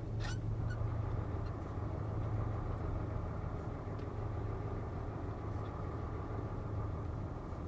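Truck diesel engine running at low, steady revs, heard from inside the cab as a steady low hum.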